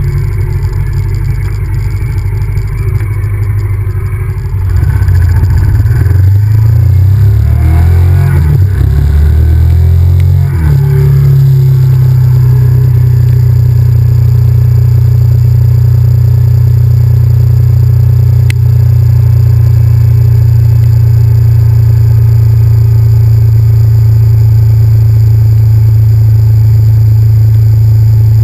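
Honda VTR1000F's 90-degree V-twin engine under way, its pitch rising and dropping through gear changes for several seconds as the bike picks up speed, then settling into a steady cruise with a low, even drone.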